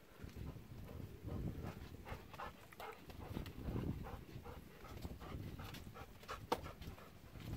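Golden retrievers panting and moving about excitedly, with a sharp click near the end.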